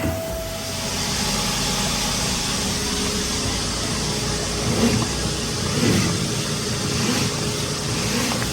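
Duct-cleaning equipment running: a steady motor drone, with a rushing air hiss that comes up about a second in and swells briefly twice in the second half.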